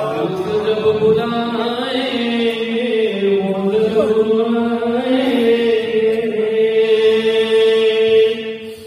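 A man's solo voice chanting an Urdu manqabat (devotional poem) without any instruments. He holds long drawn-out notes with slow bends in pitch, and the voice stops near the end.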